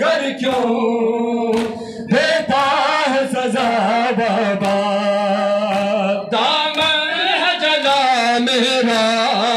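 A noha, the Shia lament for Imam Hussain, sung in long bending phrases. It is kept in time by regular slaps of matam, the ritual chest-beating, at about two a second.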